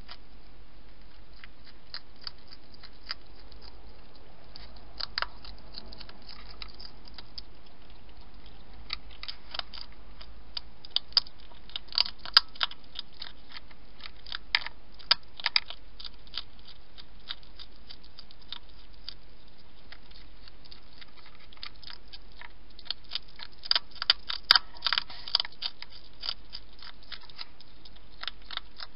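Wild hedgehog chewing and crunching food at a dish: irregular sharp crisp clicks that come in two dense bouts, over a steady hiss.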